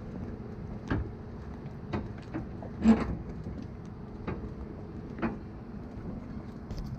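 Several irregular knocks on the metal dock as the jet boat is held against it, the loudest about three seconds in, over a steady low rumble.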